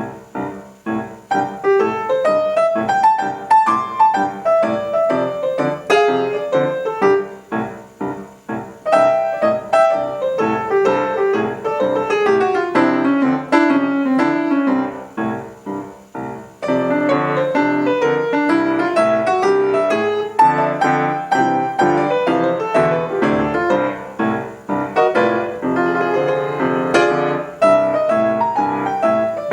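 A solo piano played in quick runs of many notes. It softens briefly just past halfway, then comes back fuller with more bass.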